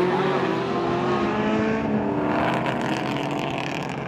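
Race car engines running at speed on the circuit. A steady engine note fades about two seconds in, and a rougher, raspier engine sound takes over.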